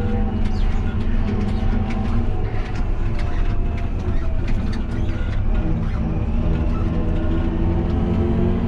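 Fendt 828 Vario tractor's six-cylinder diesel engine running while driving, heard from inside the cab, with frequent light clicks and rattles. The engine note begins to rise in pitch near the end as the tractor speeds up.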